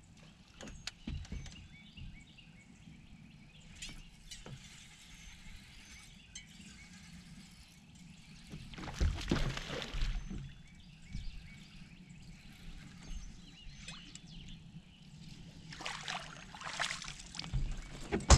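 A hooked largemouth bass splashing and thrashing at the surface while being reeled in, in two bouts about nine seconds in and again near the end, over a low steady hum.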